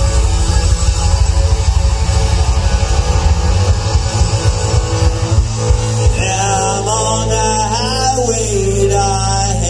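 Live rock band playing with guitars and drums. A singer comes in about six seconds in.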